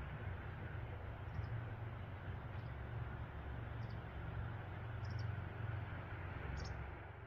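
Steady rushing of a waterfall with a fluctuating low rumble, and faint short high chirps every second or so.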